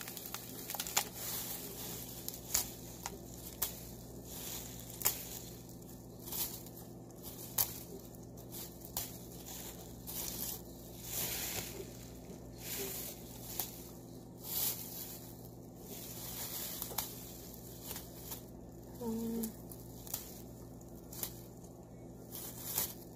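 Thin plastic produce bags crinkling and rustling in short, irregular bursts as bunches of fresh cilantro are pulled out of them.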